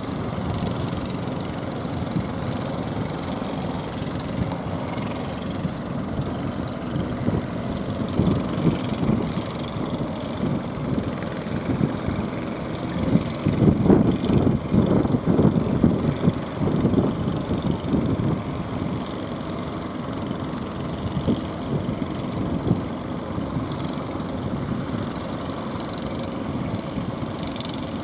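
Fishing boat engines running steadily on the water, louder and more uneven for a few seconds around the middle.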